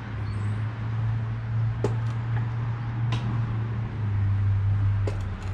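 A steady low drone with a few light metal clicks and knocks as a manual transmission is held up and its input shaft is worked into the clutch.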